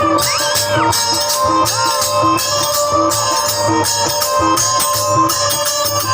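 Instrumental interlude between verses of a Bhojpuri sohar folk song: a melody instrument playing over a steady drum rhythm with jingling percussion.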